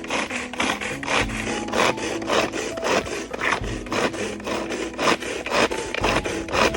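Rhythmic back-and-forth sawing or rasping strokes, about three a second, at a steady pace, over background music.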